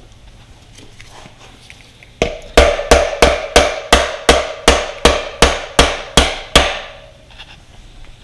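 A hammer beating on a stuck dirt-bike chassis part: about a dozen sharp blows, about three a second, starting about two seconds in, each with a short metallic ring.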